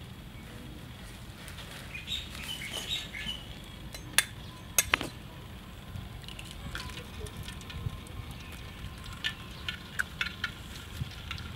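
Metal ladle and spatula clinking against a steel wok and utensils: two sharp clinks about four to five seconds in, with scattered lighter taps and ticks before and after, over a steady low rumble.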